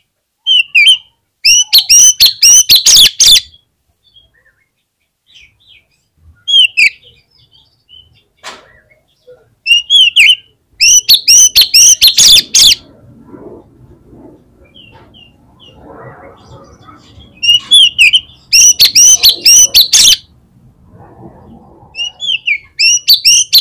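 Oriental magpie-robin (kacer) in full song: loud bursts of rapid, sharp whistled and chattering notes, about six phrases separated by short pauses.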